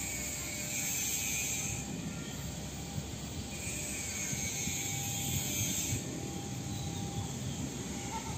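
Steady low rumble of a distant electric commuter train approaching along the line, with a high hiss that swells and fades every few seconds.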